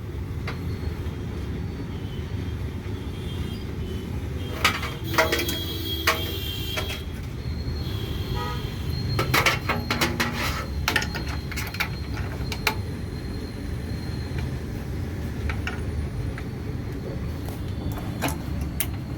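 Steady street-traffic rumble with a vehicle horn sounding for a couple of seconds about five seconds in, and scattered sharp clicks from SATA cable connectors being handled and snapped into place.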